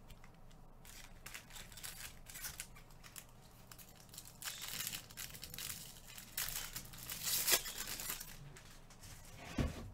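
Foil trading-card pack wrappers being torn open and crinkled by hand, in irregular crackling bursts that are loudest a few seconds in. A dull thump comes near the end.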